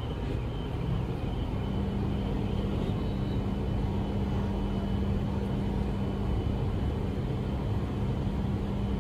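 E5 series Shinkansen bullet train at the platform: a steady low rumble, with a steady hum that comes in about a second and a half in.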